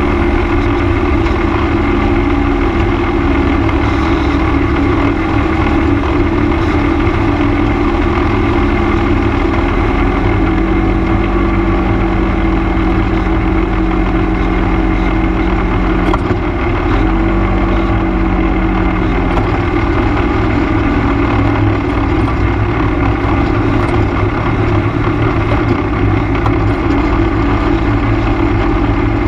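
ATV engine running steadily under way, heard from a camera mounted on the machine, its pitch shifting slightly a couple of times as the riding speed changes.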